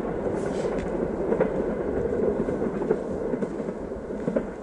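Express passenger train running away over the rails: a steady rumble of wheels with occasional clicks over the rail joints, fading somewhat near the end as the train recedes.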